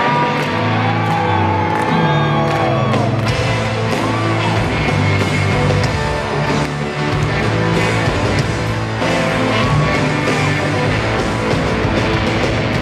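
Live rock band playing loudly in an arena, recorded from the crowd, with some gliding high notes and crowd whoops over the music.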